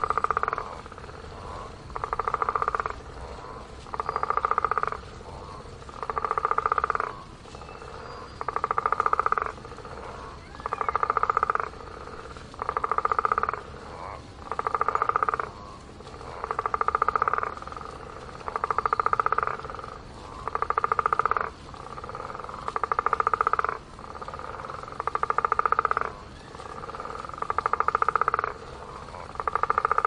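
A frog croaking over and over: one pulsing croak about a second long, repeated evenly roughly every two seconds.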